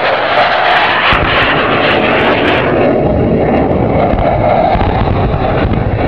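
F/A-18C Hornet's twin jet engines, loud on a low pass. The high hiss fades about three seconds in, leaving a lower rumble as the jet goes by.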